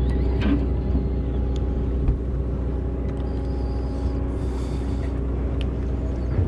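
Sportfishing boat's engine running steadily: a low rumble with a steady hum, and a few faint ticks.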